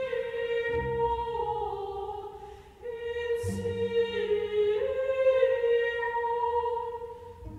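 A choir singing long held notes in several parts. It pauses briefly and moves to a new chord about three seconds in.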